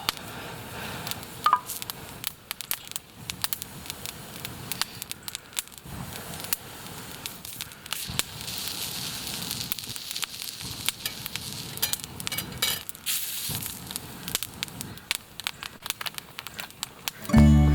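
Wood campfire crackling, with irregular sharp snaps from the burning wood.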